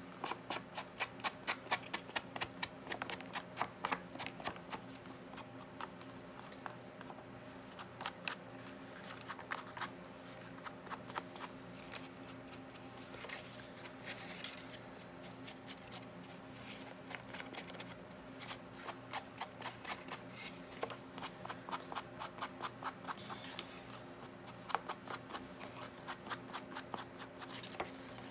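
Runs of quick, light taps, several a second: an ink pad dabbed along the edges of paper pages, with a faint steady hum underneath.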